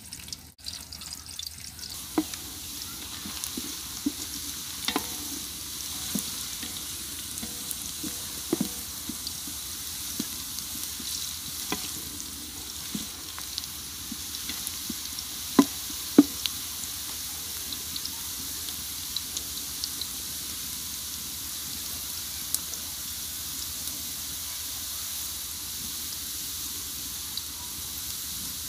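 Sliced onions sizzling steadily in hot ghee in a large metal pot, with occasional knocks and scrapes of a wooden stirrer against the pot. Two sharp knocks about halfway through are the loudest.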